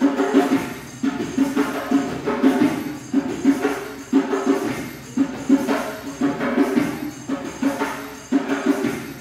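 Live percussion accompaniment: drums struck in a steady, repeating rhythm, with clusters of strokes about once a second.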